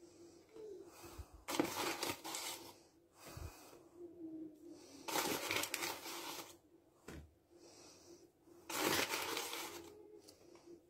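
A spoon scooping dry powdered flour and tipping it into a bowl of gram flour: three dry, scraping rustles, with a faint steady hum underneath.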